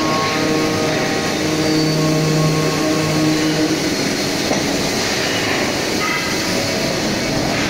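ITS-80 CNC machine running with a steady mechanical hum: a constant low tone over a rumble.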